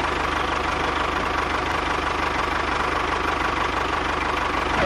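Tractor engine idling with a steady knocking chug, an engine sound effect laid over a toy model tractor.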